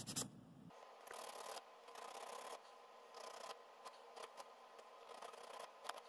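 Faint, intermittent scratching of 600-grit wet sandpaper rubbed by hand on the small copper contact ring of a clutch safety switch, flattening worn, darkened spots where residue had stopped the contacts from connecting. A light click comes near the end.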